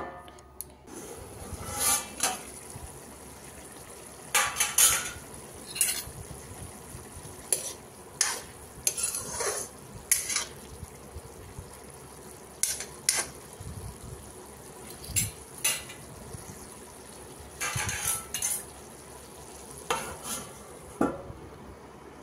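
Steel ladle stirring cluster beans in a metal kadhai, with repeated scrapes and clinks of metal on metal over a low sizzle of the simmering beans. A steel plate used as a lid clanks as it is lifted off at the start and set back on near the end.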